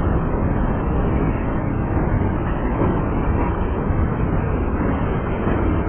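Freight train cars rolling past close by: a steady, unbroken rumble of steel wheels on the rails.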